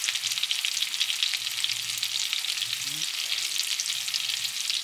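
Salmon fillets frying in foaming butter with garlic and thyme in a nonstick skillet: a steady, dense sizzle with fine crackling spatter.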